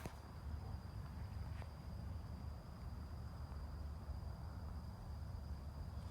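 Outdoor background: a steady low rumble, typical of wind on the microphone, with a thin steady high-pitched tone like insects. A sharp click comes right at the start and a faint one about a second and a half in.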